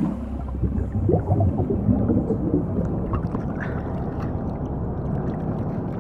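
A plunge into water heard from below the surface: a sudden splash, then a rush of bubbling and gurgling over the first few seconds that settles into a steady, muffled underwater rumble.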